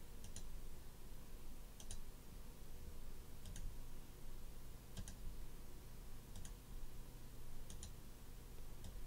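Computer mouse button clicking, a faint press-and-release pair about every one and a half seconds, over a low steady hum.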